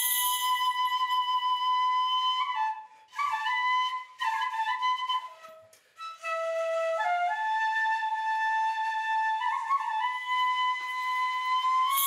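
A flute playing Shinto shrine music: a slow melody of long held notes that step up and down, dipping lower around the middle, with two short breaks for breath at about three and six seconds in.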